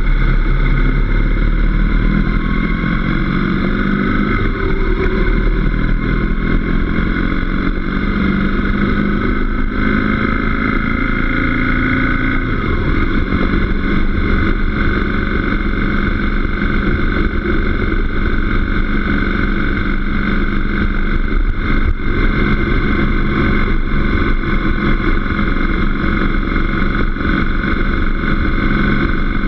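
Motorcycle engine and wind rush heard from a camera mounted on the bike, the engine note rising over the first dozen seconds as the bike accelerates, then holding steady at cruising speed.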